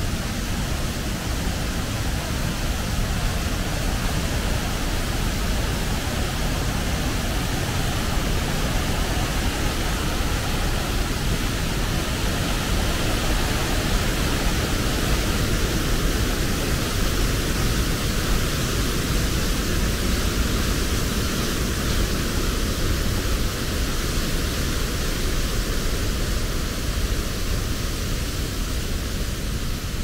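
The River Braan's waterfall and rapids rushing steadily over rocks, a continuous loud wash of water.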